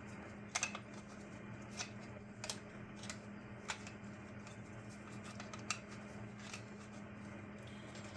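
Light clicks and taps of small parts being handled and fitted, about six spread over the first six seconds, over a faint steady low hum.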